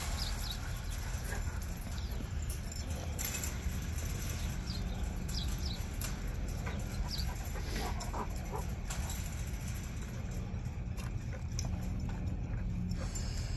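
Labrador retriever puppies whining and yipping in short, high calls scattered throughout, over a steady low rumble.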